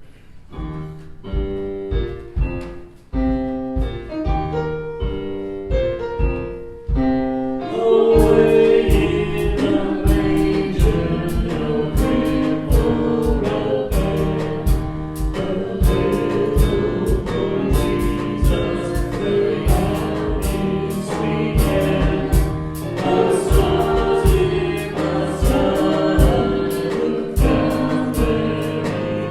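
Christian gospel worship song with choir singing. A sparse instrumental intro over a light beat gives way, about eight seconds in, to the full band with steady drums, and the music gets louder.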